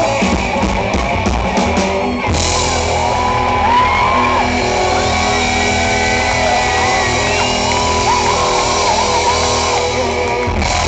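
Live rockabilly band playing loud: upright double bass, hollow-body electric guitar and drum kit, with a shouting voice over them. The music stops near the end.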